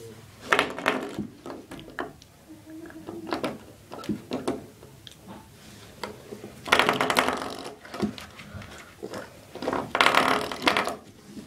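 Door stopper flicked by a dog, giving bursts of loud buzzing rattle. The longer bursts come about half a second in, around seven seconds in and around ten seconds in, with shorter clicks between.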